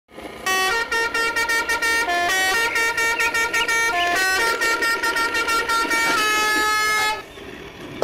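A tune played in horn-like electronic tones, notes stepping up and down in pitch over a regular tapping beat, starting about half a second in and stopping about seven seconds in.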